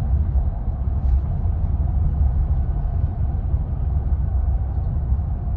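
Steady low rumble of a 2019 GMC Sierra pickup driving, tyre and road noise heard from inside the cab.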